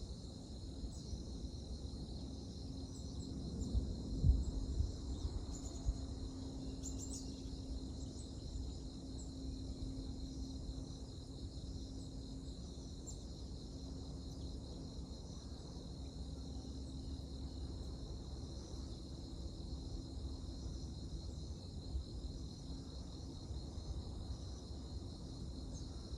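Crickets trilling steadily in a continuous high band, over a faint low steady hum, with a few low thumps about four seconds in.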